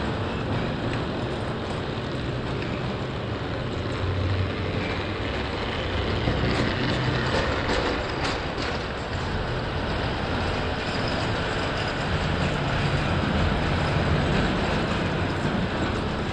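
Märklin tinplate O-scale toy trains running on metal track: a steady running noise from the tin wheels and motor, with a few clicks a little after the middle.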